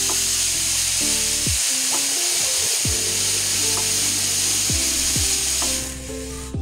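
Water running hard from a tap, a steady hiss that cuts off near the end.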